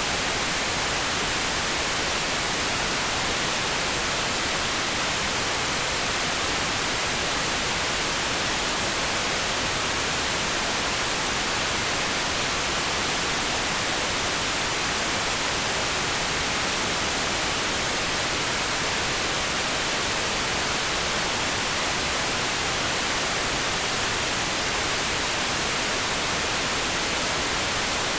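Steady pink noise: an even, unchanging hiss with no breaks or events.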